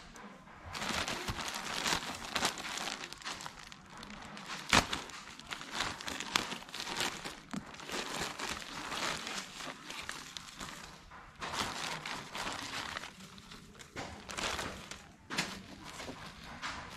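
Plastic courier mailer bags crinkling and rustling as they are handled and cut open with a folding knife, with a sharp click about five seconds in.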